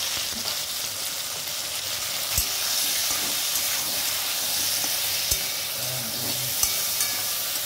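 Cut vegetables (potato, green banana, eggplant, pointed gourd) sizzling in hot oil in a metal wok while a steel spatula stirs them. The spatula knocks sharply against the pan three times.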